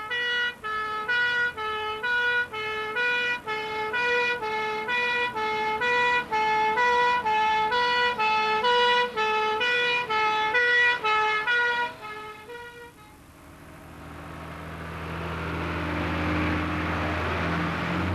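Two-tone fire engine siren alternating between a high and a low note, each held about half a second, which cuts off after about twelve seconds. A rushing swell with a low hum then builds over the last few seconds.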